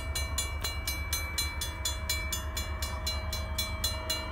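Railroad grade-crossing warning bell ringing in rapid, even strokes, about five a second: the crossing is activated for an approaching train. A low steady rumble runs underneath.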